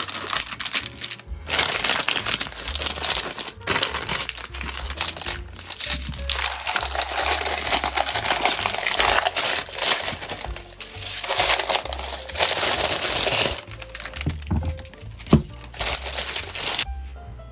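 Baking parchment paper crinkling and rustling in long stretches as it is handled and peeled away from a set slab of chocolate rocky road, over background music. A single sharp knock sounds near the end.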